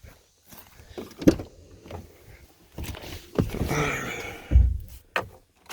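Clunks and thumps from a pickup truck's door being worked: a sharp knock, then rustling and a heavy, deep thump near the end, followed by another short knock.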